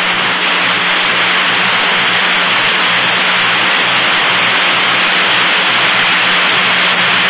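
Steady radio static hiss on an open air-to-ground communications loop, with a low hum underneath.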